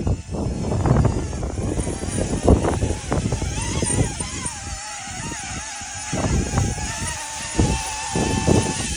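DJI Avata 2 FPV drone's motors and propellers whining, the pitch wavering up and down as it fights strong wind, with wind gusts buffeting the microphone.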